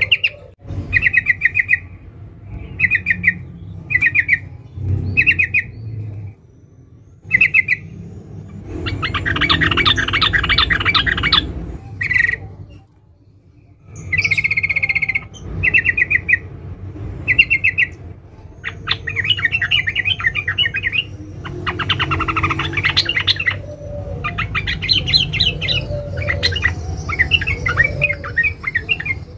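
Female yellow-vented bulbul (trucukan) calling: short chirps about once a second, then long bursts of rapid, dense chattering, with a brief pause about halfway through. A low rumble runs underneath.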